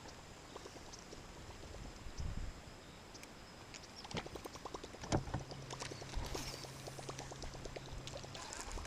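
Quiet on-the-water sounds from a fishing boat: faint scattered clicks, a quick run of ticks about four seconds in, then a sharper click and a low steady hum lasting about three seconds.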